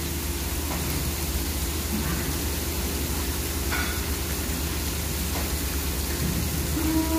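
Steady low hum and hiss of barn background noise with a few faint knocks; near the end a dairy cow starts a low moo.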